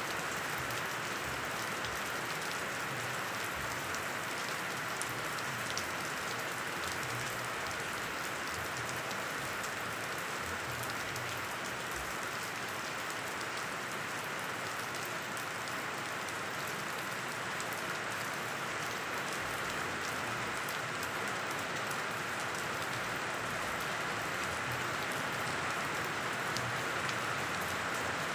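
Steady rain falling on banana plants and leafy trees: an even hiss dotted with many small drop ticks, holding the same level throughout.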